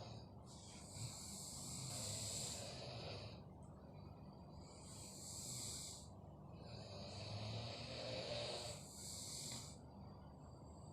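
Sleeping people snoring: three long, hissing breaths come roughly every three seconds over a steady low rumble.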